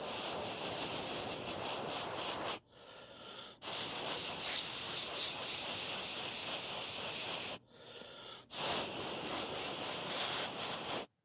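Compressed air blown over a freshly soldered phone motherboard to cool it down: three long blasts of hissing air with short pauses between them, cutting off sharply near the end.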